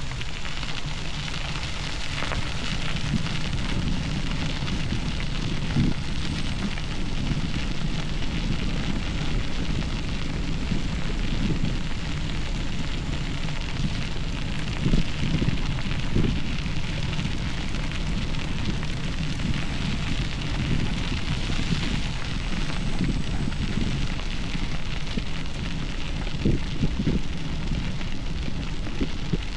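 Bicycle tyres rolling over a gravel trail with a steady crackle, over a low rumble, with a few louder bumps along the way.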